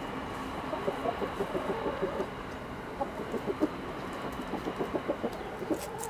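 Nagoya Cochin chickens clucking softly, a running series of short low clucks that thins out in the middle and picks up again near the end.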